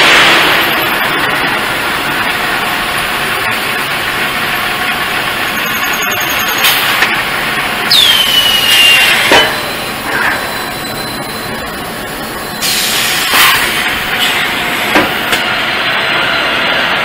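Multi-spindle vertical pipe drilling machine running with a steady hiss and whir. Several knocks or clanks come through, and about eight seconds in there is a short whine falling in pitch.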